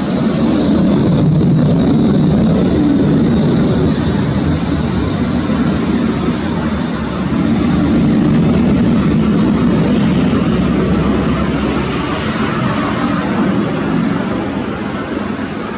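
Jet noise from MiG-29 fighters in flight: a loud, steady rumble with a hiss on top that swells about a second in and again about eight seconds in, then fades near the end.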